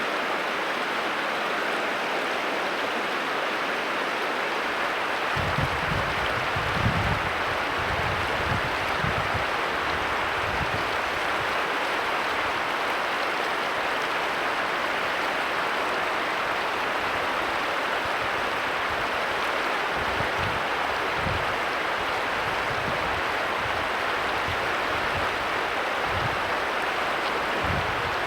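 Steady rushing of a flowing stream. Irregular low buffeting starts about five seconds in.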